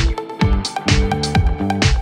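Background music: an electronic dance track with a steady, quick beat and a stepping bass line.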